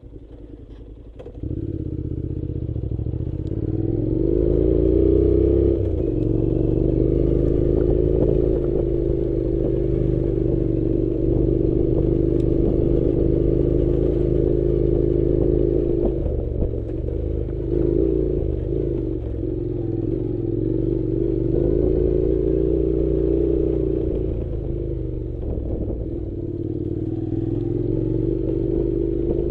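An engine running steadily, coming in suddenly about a second in, with slight rises and dips in pitch.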